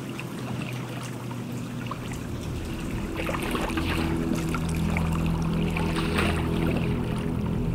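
Flood water lapping and trickling, with small irregular splashes, over a low steady drone of held tones; it grows gradually louder.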